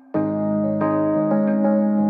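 Soft background music played on electric piano, with sustained notes changing gently about every half second.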